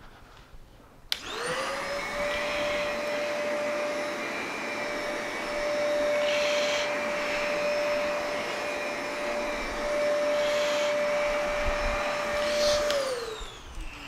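Zero G canister vacuum switching on about a second in, its motor quickly rising to a steady whine, then running while its carpet head is pushed over carpet in two passes, the loudness swelling and easing with the strokes. It is switched off near the end and winds down with a falling pitch.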